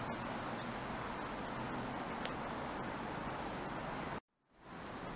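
Steady outdoor city background noise, an even hiss with a faint high whine, which drops out to silence about four seconds in and fades back up.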